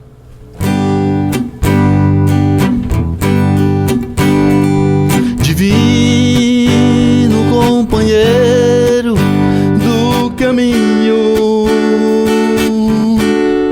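Instrumental intro to a Portuguese worship song: an acoustic guitar strumming chords in a steady rhythm, with a held, gliding melody line over it.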